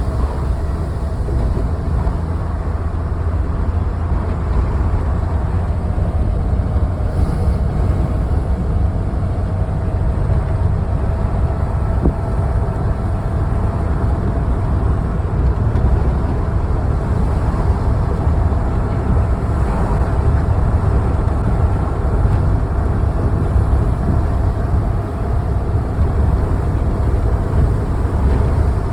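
Strong wind rushing over the microphone on a moving vehicle: a steady, loud low rumble with a faint engine hum beneath.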